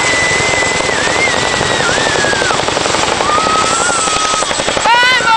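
CH-47 Chinook tandem-rotor helicopter passing low overhead: rapid, heavy blade chop with a turbine whine that wavers and drops in pitch as it goes by. The chopping grows stronger about three seconds in.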